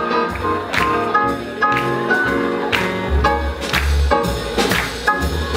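Live swing jazz band playing a Lindy hop number: piano, upright double bass and drum kit with horn lines, the drums striking sharply over a walking bass.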